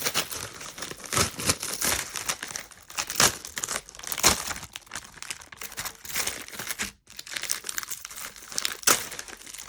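Packaging of Model Magic modelling clay crinkling and tearing as the clay is unwrapped, in irregular crackles and rustles.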